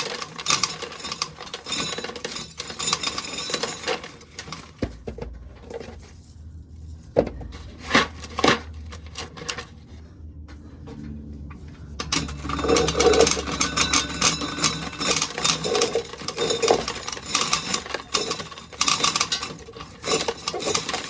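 Hard objects clattering and scraping, metal on metal, in an uneven run of clicks and knocks. A low steady hum comes in about five seconds in and stops around twelve seconds.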